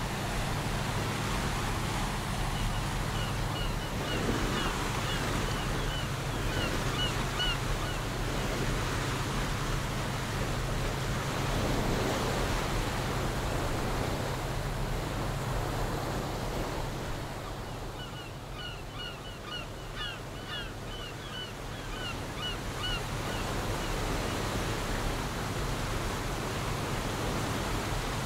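Ocean waves washing over a steady low drone like a ship's engine. Gulls give runs of short repeated cries a few seconds in and again about two-thirds of the way through.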